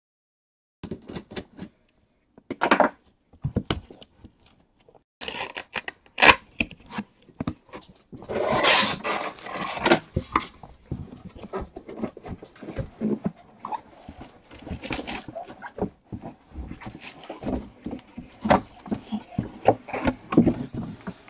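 Large cardboard box being opened and handled: flaps flexing, irregular knocks and rustles, and a stretch of loud cardboard scraping and sliding about eight to ten seconds in as the boxed helmet inside is worked out.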